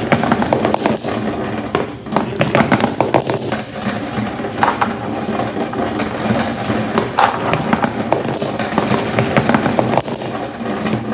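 Marbles rolling down a marble run: a continuous rolling rumble dotted with many quick clicks and knocks as they roll along and strike the track.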